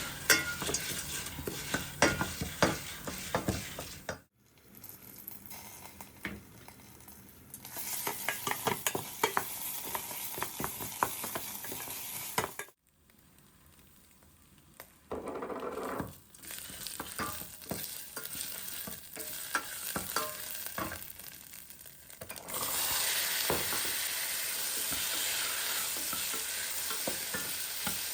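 Food frying and sizzling in a pan while it is stirred, with many clicks and scrapes of a utensil against the pan. The sound breaks off and changes several times; near the end the sizzle becomes steadier and louder.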